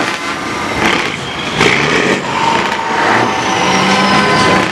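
Scania 143M 500's V8 diesel revving through loud exhaust pipes, with sharp surges about one and one and a half seconds in, then running on more steadily.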